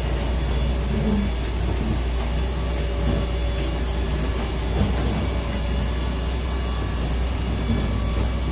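Steady loud machinery noise with a constant low hum, typical of a large woodworking machine running in the shop.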